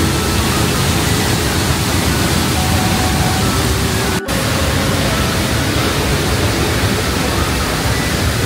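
Loud, steady rushing noise that cuts out for an instant about four seconds in, with faint music underneath.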